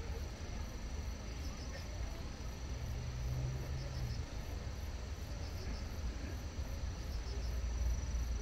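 Insects chirping: a steady high buzz with short chirps in threes every second or two, over a constant low outdoor rumble.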